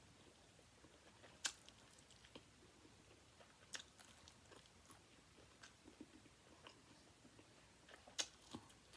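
Faint close-miked chewing of crispy fried chicken wings, with three sharp crunches: one about a second and a half in, one near four seconds and one near the end.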